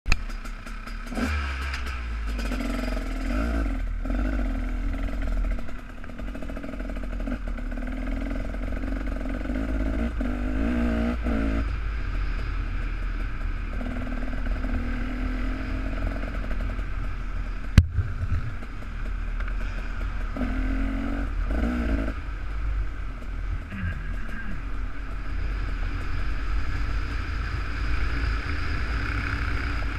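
Two-stroke dirt bike engine running at low speed, blipped and revved in short bursts as it pulls away, heard from the rider's helmet camera. There is one sharp knock about 18 seconds in.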